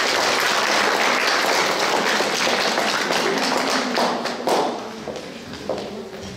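Audience applauding in a hall. The clapping dies away about four and a half seconds in, leaving a few scattered claps.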